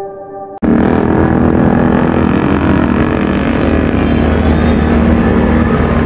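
Soft, slow music with held notes cuts off abruptly about half a second in, giving way to a motorcycle engine running loudly and steadily.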